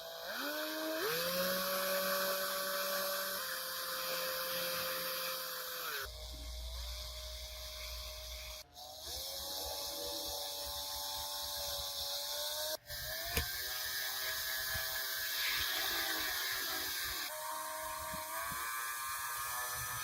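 A small electric power tool running with a steady whine, spinning up in pitch near the start and again around nine and eighteen seconds in, with two sudden breaks.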